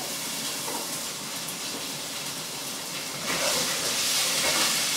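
Minced-beef meatballs sizzling in a frying pan on a gas hob, the sizzle getting louder a little over three seconds in.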